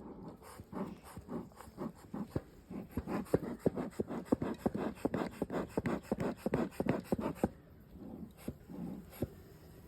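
Bee smoker bellows pumped in quick puffs, several a second, stopping about three-quarters of the way through: smoke being puffed into the hive to calm the bees.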